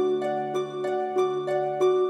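Gentle background music: plucked, harp-like notes about three a second over a held lower tone.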